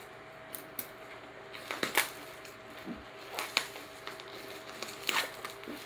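Clear plastic wrap and black bubble wrap crinkling and crackling as they are picked at and pulled off a parcel, in short scattered crackles a second or two apart.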